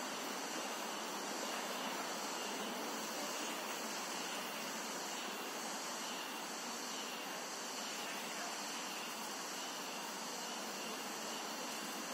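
Steady, even outdoor background hiss, with no distinct events standing out.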